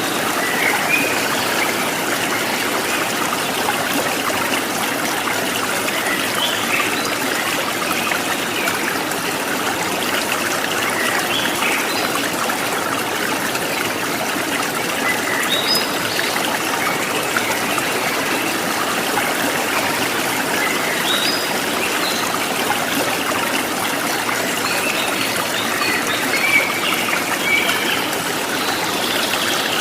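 Stream water running and trickling steadily, with short bird chirps now and then, more of them near the end.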